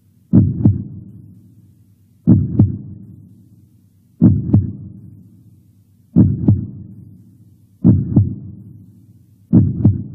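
Heartbeat sound effect: six slow, deep double thumps (lub-dub), one pair about every two seconds, each fading out in a low tail.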